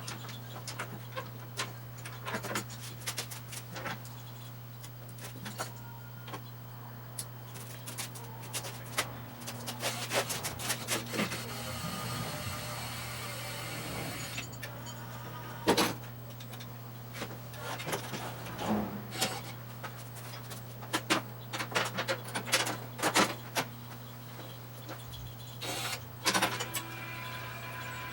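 Scattered sharp clicks and knocks over a steady low hum. From about twelve to fourteen seconds in, a rushing hiss rises and then stops.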